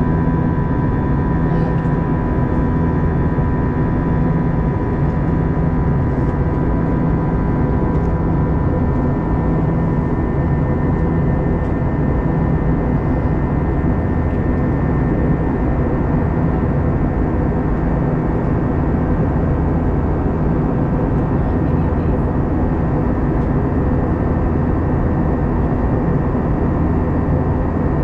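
Steady cabin noise of an Airbus A321-211 in flight, heard from inside the cabin: the low rumble and rush of its CFM56 turbofan engines, with several steady tones humming over it.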